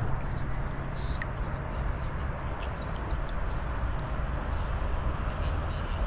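Wind rumbling on the microphone, with a steady high-pitched buzz and a few faint bird chirps over it.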